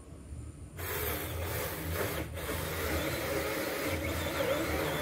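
Bull 4-inch battery-powered mini chainsaw cutting into an old water apple trunk. The rasping cut starts suddenly about a second in and runs on steadily, with a brief break a little after two seconds.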